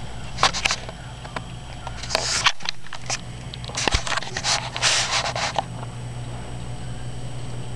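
A cat scuffling and scratching on carpet in short bursts of rustling with sharp clicks, over a steady low hum.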